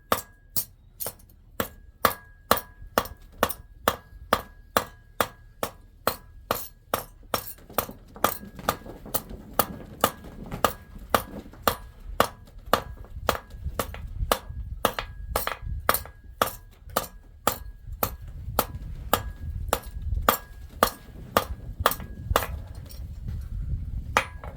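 Steady hand-hammer blows on an anvil while forging pure silver, about two a second, each strike leaving a short metallic ring. The hammering stops shortly before the end.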